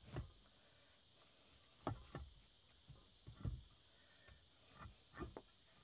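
Stone being set and worked into place on a hard dirt floor: a series of irregular dull knocks of rock against rock and packed earth.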